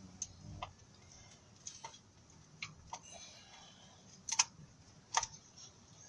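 Irregular sharp clicks and light taps, about eight of them spread unevenly over a quiet background; the loudest two come about four and five seconds in.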